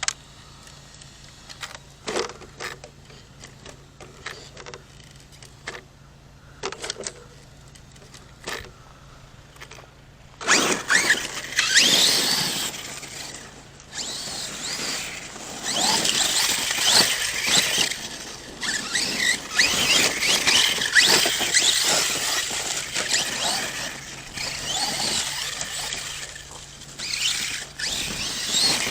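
ARRMA Kraton 6S RC monster truck's brushless electric motor whining in surges as it accelerates, with its tyres churning dirt. This starts about a third of the way in; before that there are only scattered clicks and knocks.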